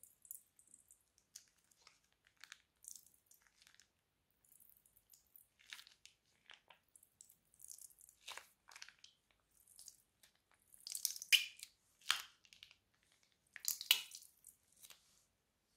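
Clear glitter slime squeezed out of a plastic piping bag, with irregular sticky crackles, pops and squishes, a few louder crackling clusters in the second half.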